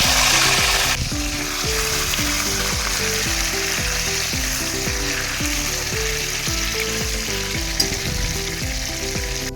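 Food frying in hot oil in a cooking pot, with a loud sizzle in the first second that settles to a steady sizzle. Background music plays underneath.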